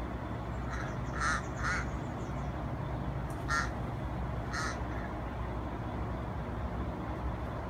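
Torresian crow giving short, harsh caws, about five of them spaced over the first five seconds, over a steady low hum.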